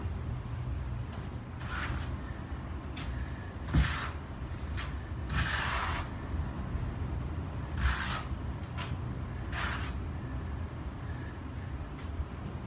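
A hand tool scraping against a ceramic floor tile and tile mortar in short strokes, about nine scrapes of half a second or so, with a single knock about four seconds in, over a steady low hum.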